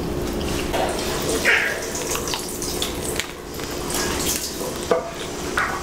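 Crisp nori crackling and crunching as a sushi hand roll is bitten into and chewed close to the microphone, an irregular run of small crackles with brief pauses.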